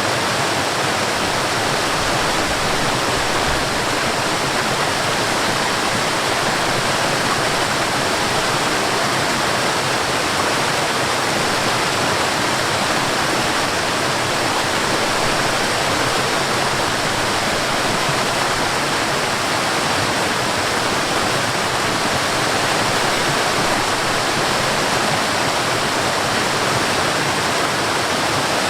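Water falling over a small waterfall and running in a stream, a steady, even rush with no breaks or changes.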